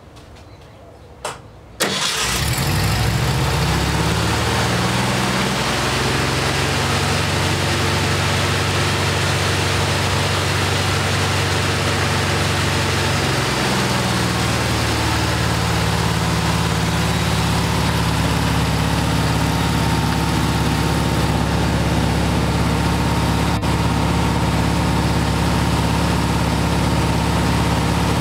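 Air-cooled 36 hp VW flat-four engine catching about two seconds in and then running steadily at a high idle set near the redline, with the 150-amp alternator working hard under an electrical load of a space heater and a 500-watt lamp. Its note shifts briefly about halfway through.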